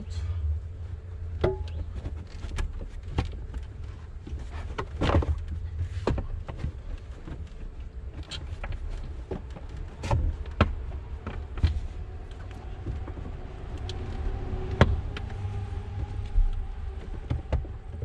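Plastic pillar trim panel of a Volkswagen Passat wagon being pressed and knocked against its mounting clips: scattered sharp clicks and knocks over a low rumble. The panel does not snap home, because one of its clips is bent.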